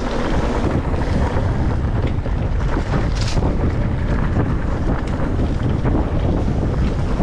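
Wind buffeting an action camera's microphone as a mountain bike rolls down a dirt trail, a steady deep rumble with the tyres' crunch and small rattles over the ground, and a short hiss about three seconds in.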